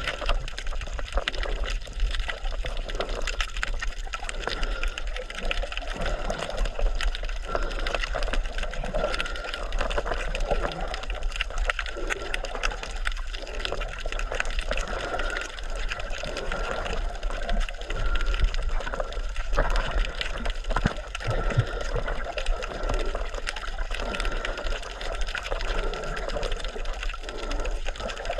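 Water moving and gurgling, a steady dense churn with many small crackles.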